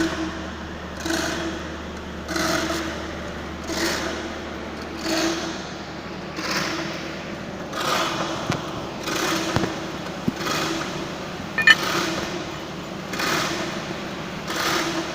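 Manual crane hoist being worked stroke by stroke, a rhythmic mechanical clatter about once every second and a third over a steady low hum. There is a single sharp metallic clink near the end.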